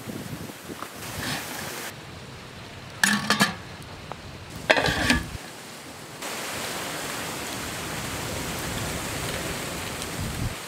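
Steel cookware clattering twice, each a ringing metal clank, about three and five seconds in. From about six seconds in there is a steady hiss.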